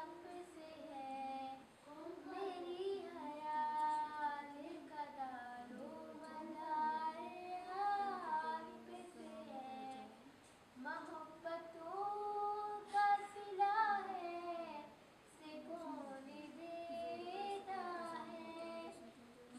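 A young girl singing a naat, a devotional song, solo and unaccompanied, holding long notes with sliding ornaments and pausing briefly between phrases.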